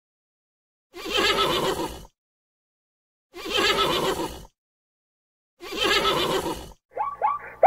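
Horse whinnying three times, each call about a second long, with dead silence between them. Near the end a different, quicker run of short sounds begins.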